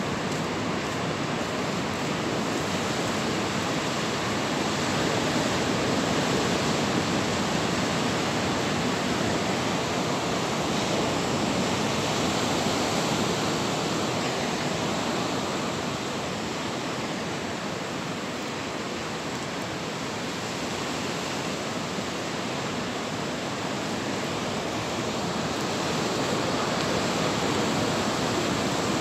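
Surf breaking on the shore: a steady rushing of waves that swells and eases slowly over several seconds.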